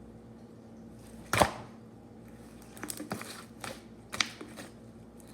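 Slime being worked in the hands, with a few sharp clicking pops and crackles. The loudest pop comes about a second and a half in, and smaller crackles follow around three and four seconds in.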